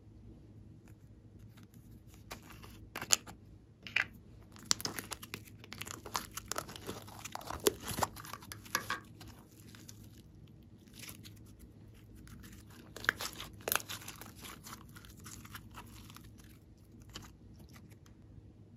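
Hands pulling and stretching a lump of blue slime, making clusters of sticky crackling and tearing, busiest from about three to nine seconds in and again around thirteen seconds, then dying down.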